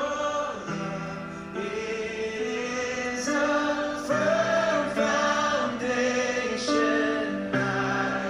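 Music with a choir singing long held chords that change about once a second.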